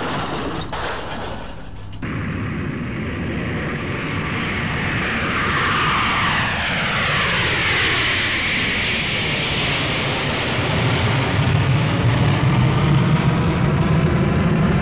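Jet airliner's engines growing louder as it flies in low, with a whine that falls in pitch about halfway through.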